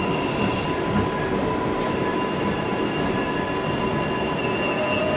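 R142A subway train heard from inside the car as it slows into a station: steady rumble of the wheels on the track, with high squealing tones over it and a tone that rises near the end.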